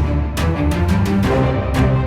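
Background theme music with a steady beat: sustained low notes under regular percussion strikes, several a second.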